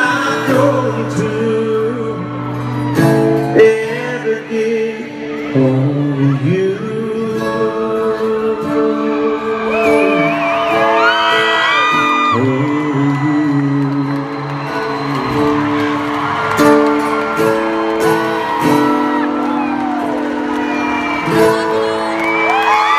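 Slow country ballad performed live: a man singing over a strummed acoustic guitar, with held chords ringing out in an arena.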